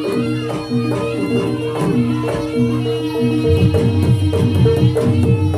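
Jaranan music played by a gamelan-style ensemble: tuned metal percussion repeats a short melody over drumming, and the drumming becomes busier about three and a half seconds in.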